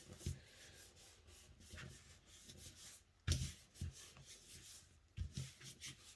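Faint rubbing and handling of paper as a glued card is laid down and smoothed by hand, with a few soft knocks on the work surface.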